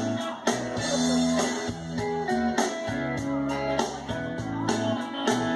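Karaoke backing track playing over the bar's sound system: a guitar-led instrumental passage with a steady beat and no singing.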